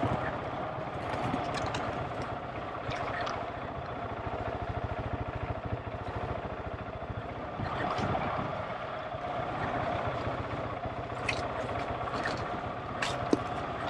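GasGas ES700's single-cylinder four-stroke engine running steadily under way on a trail ride, swelling a little in loudness now and then. A few sharp ticks come near the end.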